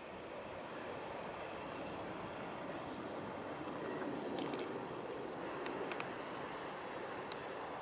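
Small birds chirping with short, high calls again and again, including two thin whistled notes in the first two seconds, over a steady low outdoor background noise.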